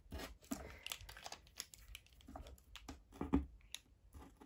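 Black felt-tip marker drawing on paper: a run of short, irregular scratchy strokes.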